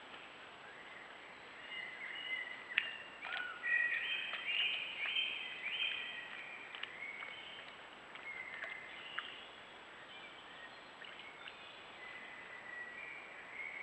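Songbirds singing in woodland, a run of short clear whistled notes that is busiest a few seconds in and thins out later, over a steady background hiss and a faint high steady whine. A few sharp clicks stand out, the loudest about three seconds in.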